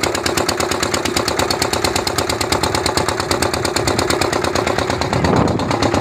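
Wooden fishing boat's engine running steadily, a rapid, even train of pulses, briefly a little louder about five seconds in.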